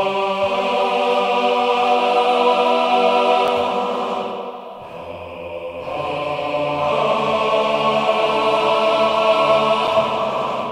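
EastWest Hollywood Choirs men's choir (sampled virtual instrument) singing sustained 'aah' chords. A first chord is held for about four seconds and dips, then a second chord swells in around the six-second mark and holds, starting to fade at the very end.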